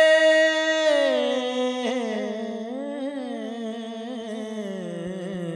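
A man's voice singing unaccompanied into a microphone, a devotional Punjabi song in praise of Ali: one high note held, then sliding lower about a second in and wavering through a long drawn-out run on a vowel. It grows gradually softer.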